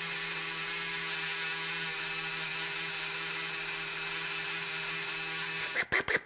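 Handheld rotary tool spinning a polishing wheel, buffing machine polish onto a zinc-plated diecast car body. It runs with a steady whine, then stops near the end.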